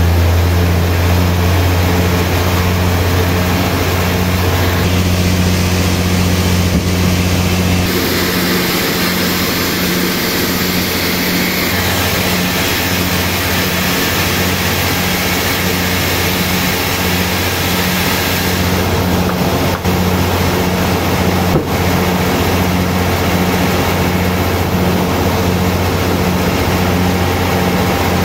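Large sawmill band saw running and sawing through a big hardwood log: a steady low machine hum with a regular throb about twice a second under the hiss of the blade in the wood.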